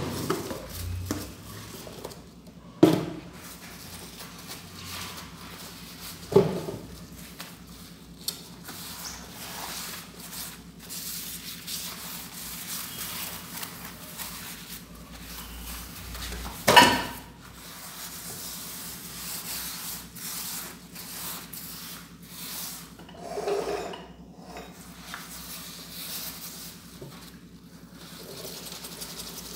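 Dishes and pans being washed by hand at a kitchen sink: steady scrubbing and rubbing, broken by clanks of dishware. There are sharp knocks about 3 and 6 seconds in, and the loudest clank comes about 17 seconds in.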